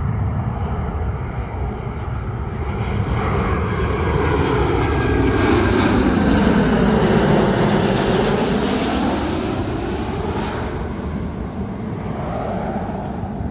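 Boeing 737 jet airliner passing overhead: steady jet engine noise that swells to its loudest about halfway through and then eases off, with a sweeping whoosh that falls and rises in pitch as it goes by.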